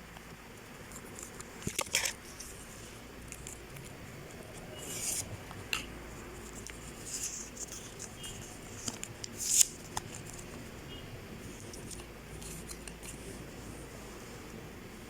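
Close handling noise: scattered clicks, scratches and short rustles over a low steady background, loudest about two seconds in and again near the ten-second mark.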